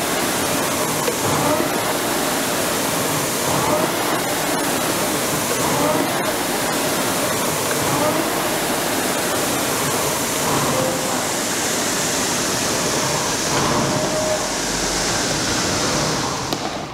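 Concept2 indoor rower's fan flywheel whooshing steadily as it is rowed through warm-up stroke builds; the sound cuts off abruptly near the end.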